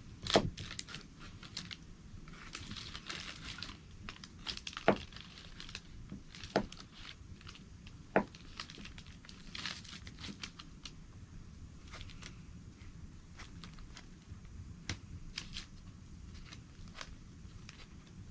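Plastic packaging crinkling and rustling as it is handled, with a few sharp knocks in the first half, the loudest right at the start.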